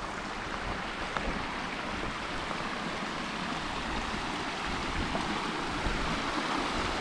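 Hot spring water flowing with a steady, even rush.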